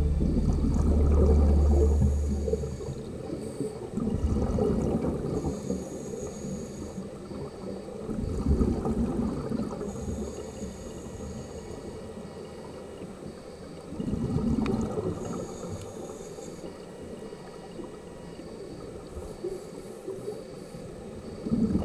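Underwater scuba breathing heard through the camera housing: a short hiss from the regulator on each inhale and a low rush of bubbles on each exhale, repeating every few seconds. Background music fades out about three seconds in.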